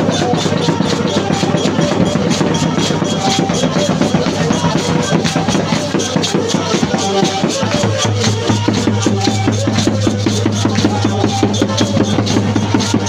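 Music with a fast, steady drum-kit beat over a bass line; the bass moves down to a lower held note about eight seconds in.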